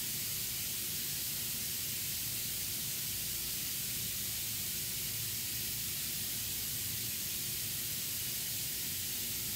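Dental implant motor driving an implant through a contra-angle handpiece at a slow 25 RPM with a 45 Ncm torque limit and no saline irrigation, heard as a steady, even hiss over a faint low hum.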